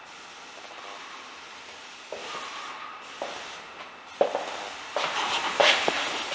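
Footsteps on a wood floor, a soft knock about once a second from about two seconds in, over a steady hiss. Rustling handling noise from the handheld camera grows louder near the end.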